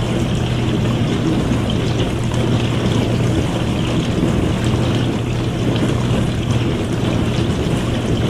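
Dishwasher running: a steady low motor hum under the even wash of water spraying and sloshing inside the tub.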